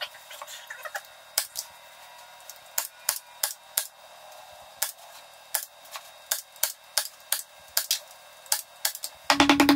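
Scattered light clicks and taps of hand tools handled against aluminum square tube. Near the end, a much louder rapid rattle of about a dozen pulses a second sets in.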